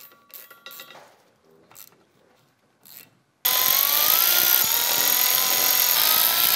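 Milwaukee cordless electric ratchet running a bolt into the rear U-joint at the differential yoke. A few faint clicks come first, then about three and a half seconds in the ratchet starts up loudly, its motor whine wavering in pitch as the bolt runs down.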